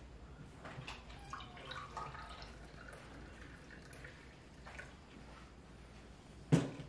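A drink is poured from a plastic pitcher into a drinking glass: a faint trickle with small clicks. A sharp knock near the end is the loudest sound.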